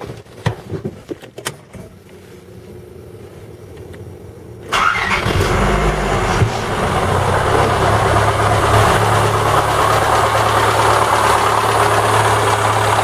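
A few scattered clicks, then about five seconds in a MeMZ 317 1.4-litre petrol engine starts up, briefly revs and settles into a steady idle. With its valve clearances set tight it runs much quieter, but a dull knock remains, later traced to the clutch housing rather than the cylinder head.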